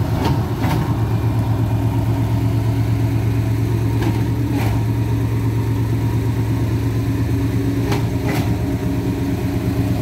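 Concrete pump truck's engine running steadily at idle, with pairs of short sharp clicks about every four seconds.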